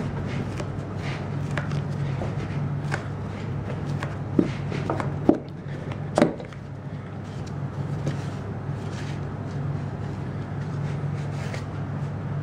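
Minimoto tyre being worked onto its rim by gloved hands without levers: rubber rubbing and squeaking against the rim, with scattered clicks and three sharper knocks around the middle, over a steady low hum.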